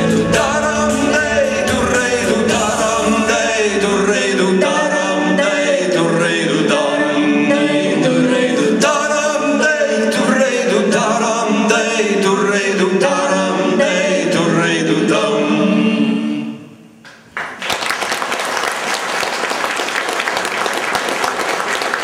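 Male singer and live rock band (drums, bass, electric guitar, keyboards) playing the end of a song; the music stops about 16 seconds in, and after a brief pause the audience applauds.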